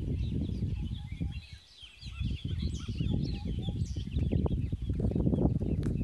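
Many birds chirping, a dense chorus of short high calls, over a loud, gusty low rumble of wind on the microphone that drops away for a moment about a second and a half in.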